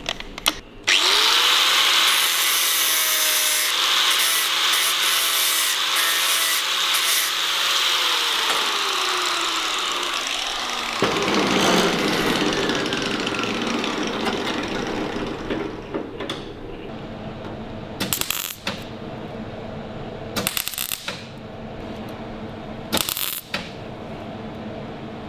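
Angle grinder spinning up and grinding the edge of a sheet-metal patch, its whine falling as it winds down. Then about five short crackling bursts of a MIG welder tacking the patch onto the steel door.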